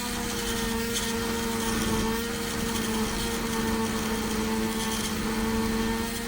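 Split air conditioner outdoor unit running with a steady, unchanging hum made of a low tone and a higher overtone.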